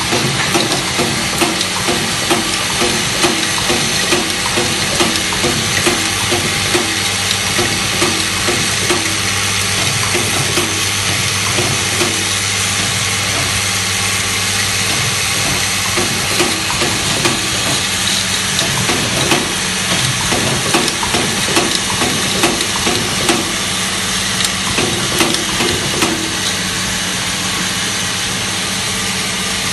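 Vibratory bowl feeder running: a steady electromagnetic hum with a dense metallic rattle of small metal parts shaking and sliding along the bowl's spiral track, broken by frequent short clacks.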